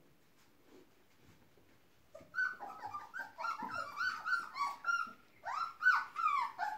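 Three-week-old puppies whining and yipping in rapid, overlapping high cries, starting about two seconds in after only faint rustling.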